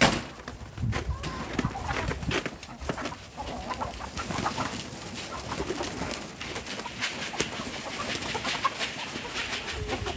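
Chickens clucking, mixed with cooing, with scattered short knocks and a sharp knock right at the start.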